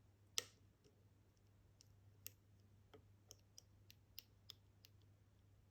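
Faint, irregular clicks of a lock pick working the pins of a Kaba experT dimple lock during picking: one sharper click about half a second in, then about ten small clicks spread over the rest.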